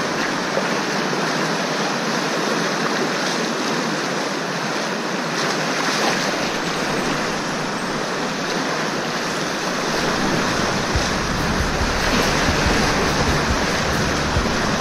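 Rushing whitewater of a rocky mountain creek rapid around a kayak, a steady hiss heard close to the water's surface. About ten seconds in, a low rumble joins it.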